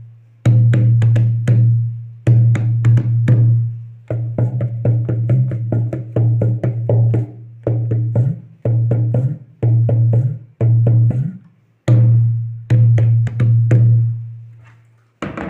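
Sheesham wood nut-bolt dholak played in short rhythmic phrases: the bass head rings with a deep booming tone under quick, sharper finger strokes. The boom dies away in brief gaps between phrases.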